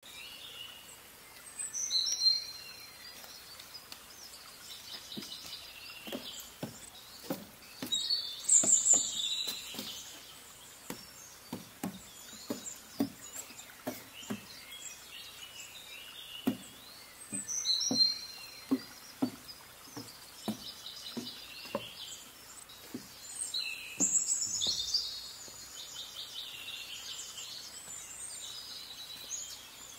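A songbird singing short phrases of high chirps and trills every several seconds over a steady outdoor background hiss. Through the middle there is a run of soft low thuds, about one or two a second.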